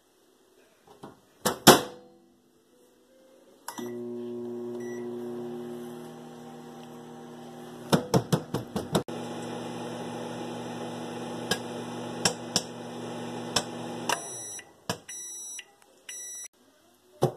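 Microwave oven running with a steady hum for about ten seconds, with a few sharp clicks over it, then stopping and beeping three times as the timer runs out. A sharp knock comes about two seconds in, before it starts.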